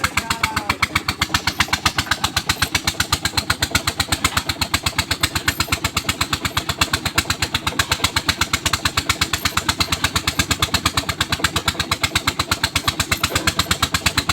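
Engine of a water-well boring rig running steadily with an even, fast chugging beat of several pulses a second.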